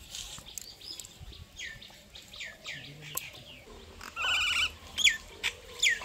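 Birds calling: a run of quick downward-slurred whistles, a short warbling trill a little past the middle, and two sharp falling calls near the end.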